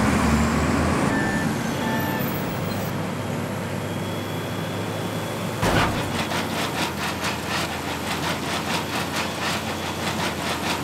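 Sound effects of a truck-mounted drilling rig: a heavy engine runs with a steady rumble, then about halfway in a thud and a rapid, even pounding of the drill boring into the ground, about four beats a second.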